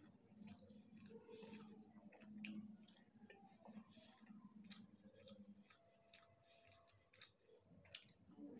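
Quiet, close-miked chewing of fried rice eaten by hand, with many small wet mouth clicks and smacks scattered through.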